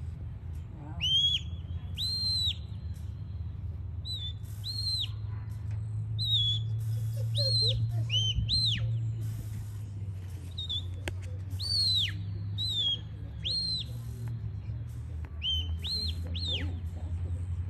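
Sheepdog handler's whistle commands to a herding dog working sheep: short, clear, high notes that rise and fall or sweep downward, often in quick pairs or threes, repeated every second or two. A steady low rumble runs underneath.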